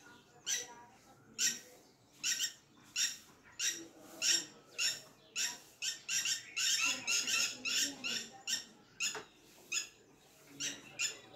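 Repeated short, high-pitched animal calls, about one or two a second, coming quicker for a couple of seconds in the middle.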